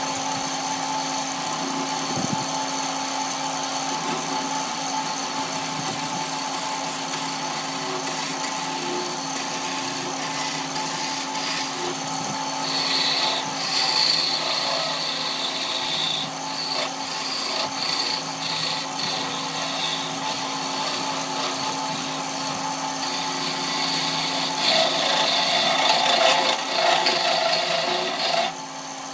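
Electric wood lathe running with a steady motor hum while a turning gouge scrapes and cuts a spinning block of wood. The cutting grows louder in two stretches, around the middle and near the end, and stops just before the end.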